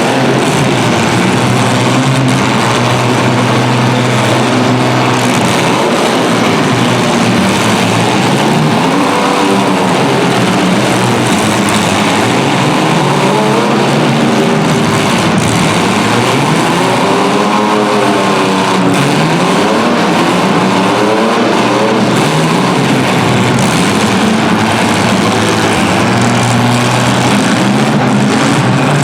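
Several compact car engines revving hard over a constant wash of engine noise, their pitch rising and falling again and again.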